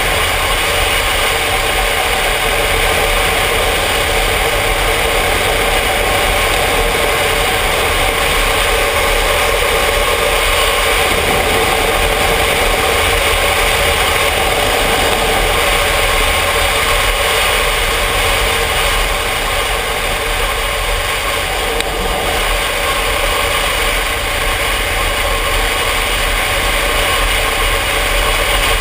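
Yamaha Ténéré motorcycle's engine running steadily at cruising speed, with wind rushing over the helmet-mounted camera.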